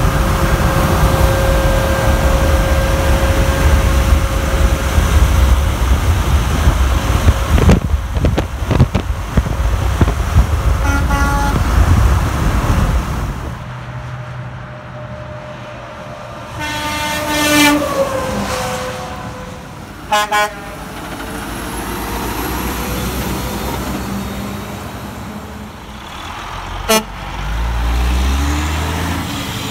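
Montage of semi trucks and their air horns. First comes loud engine and road noise inside a moving Freightliner CL120's cab. Then a Kenworth W900 blows its Hadley air horn as it passes on the highway, the chord dropping in pitch as it goes by, followed by a second short blast; near the end a Kenworth W900 dump truck's engine rumbles.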